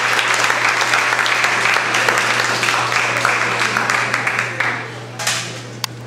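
Audience applauding, the clapping dying away about four and a half seconds in, over a steady low hum. A single sharp click comes near the end.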